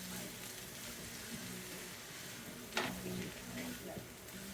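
Vegetables frying quietly in a pan with a soft, steady sizzle. A single sharp knock comes a little under three seconds in, and a low steady hum runs underneath.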